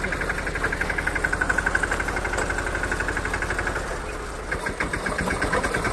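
Tractor diesel engine running with an even, rapid pulsing beat; it drops briefly quieter about four seconds in, then picks up again.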